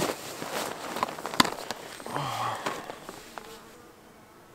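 Rustling of a nylon sleeping bag and air sleeping mat as a person shifts and sits up on them, with several sharp clicks, the loudest about a second and a half in. A fly buzzes briefly about two seconds in.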